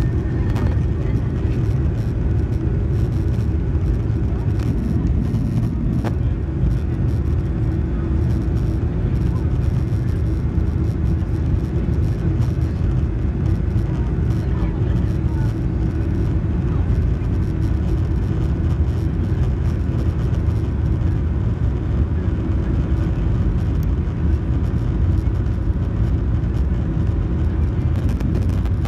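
Steady low rumble and hum of a Boeing 737-800's cabin, the aircraft's air and engine systems running without change.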